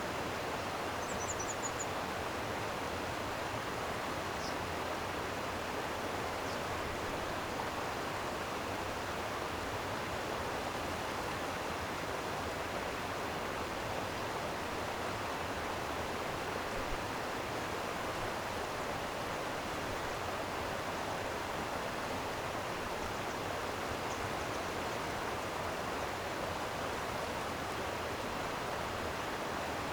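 Stream water flowing over rocks, a steady even rush with no change.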